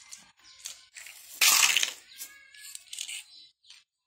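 Rustling and small clicks of plastic toys being handled by a toddler, with one loud rustling burst about a second and a half in.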